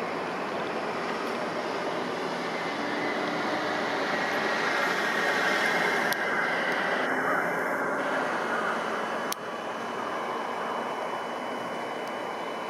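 Steady background noise of construction machinery and vehicle traffic, with two sharp clicks about six and nine seconds in.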